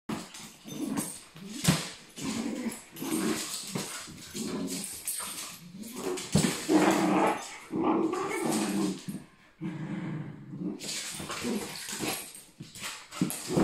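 Two small dogs play-fighting, growling almost continuously in rough play, with short knocks and scuffles as they wrestle on the hard floor.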